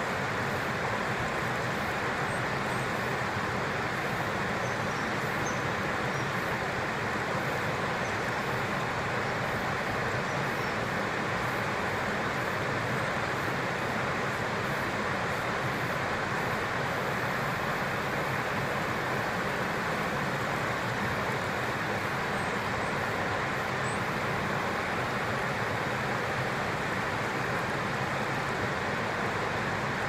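Steady, even rushing of a flowing stream, with a few faint high chirps above it.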